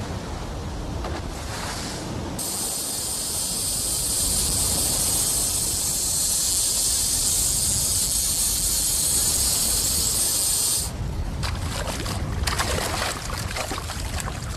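Small fishing boat at sea: low rumble of water against the hull, with a loud high hiss that holds for about eight seconds and cuts off suddenly. After it come scattered splashes and knocks as a tuna is brought alongside.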